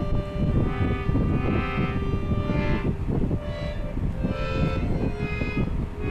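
Music: a melody of long held notes over loud, busy drumming.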